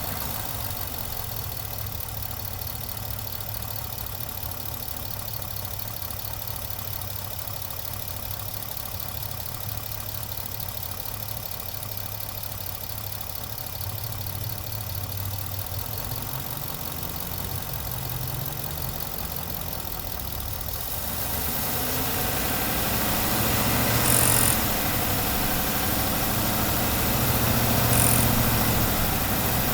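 A 2018 Ford F-150's 5.0 L V8 running steadily. About two-thirds of the way through it grows louder and fuller, with two brief louder swells near the end. The owner reports a knock from this engine under acceleration, along with oil and coolant consumption.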